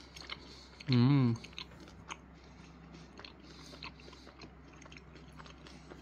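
A man chewing a mouthful of butter chicken and naan, with faint wet mouth clicks. About a second in comes a short, loud hummed "mmm" with a wavering pitch, a sound of enjoyment.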